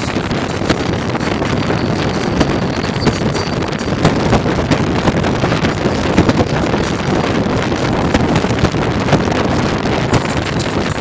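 Wind buffeting the microphone of a phone held at the side window of a moving car, over the car's road noise: a loud, steady rush with constant small gusts.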